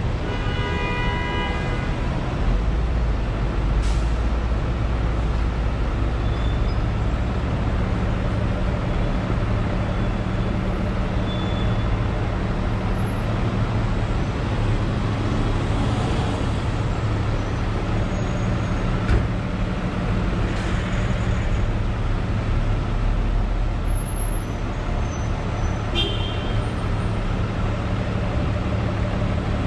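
Steady low rumble of city traffic, with road vehicles' engines and tyres running continuously. A few brief sharp sounds break through: a short high tone near the start, a hiss about two-thirds of the way in, and a short sharp tone or squeal near the end.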